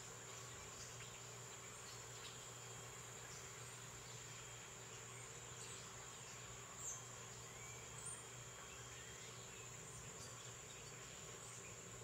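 Faint, steady high-pitched insect chorus, like crickets, with scattered faint chirps from small birds; one chirp about seven seconds in and another about a second later stand out a little louder.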